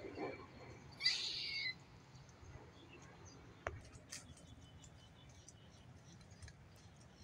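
A single harsh, raspy animal call about a second in, lasting under a second. It comes after a faint call falling in pitch at the start, and a sharp tick follows a few seconds later.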